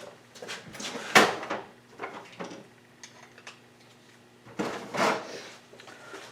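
A screwdriver prying and scraping on a seized oil pump's metal parts: a few sharp metallic clicks and clanks, the loudest about a second in and again near five seconds, with lighter scraping between.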